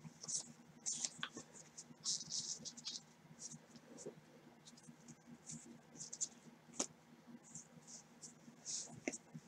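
Paper trading cards sliding and rubbing against each other as gloved hands sort through a stack: faint, scattered short rustles, with one sharper click about seven seconds in.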